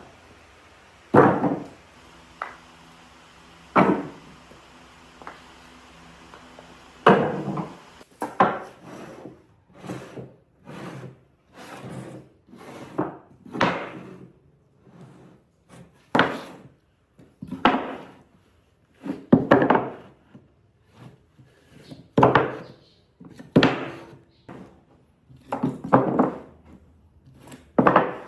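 Repeated sharp blows of a tool striking wood: a few widely spaced strikes at first, then a steadier run of about one a second from about a third of the way in.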